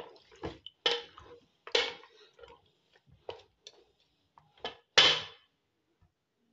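A spoon stirring chunks of mutton, onion and tomato in an aluminium pressure cooker, clinking and scraping against the pot in irregular knocks. The loudest knock comes about five seconds in, then the stirring stops.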